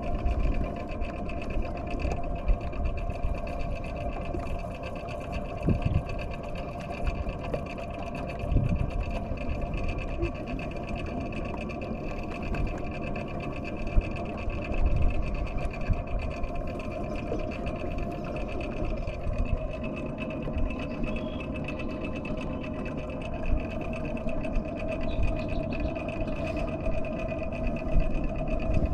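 Boat motor running steadily at slow trolling speed, a constant whirring hum with a steady whine, plus a few brief knocks and bumps.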